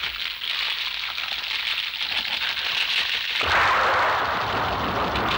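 Cartoon sound effects: a dense crackling hiss, then about three and a half seconds in a sudden, louder blast-like rumble with deep bass that carries on.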